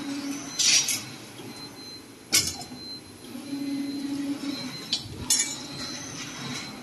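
CNC wire bending machine at work: several sharp metallic clinks of steel wire, with a steady low motor hum twice, once about half a second long and once about a second long.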